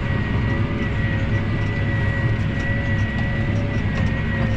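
Engine running steadily: a low rumble with a thin, steady high whine over it.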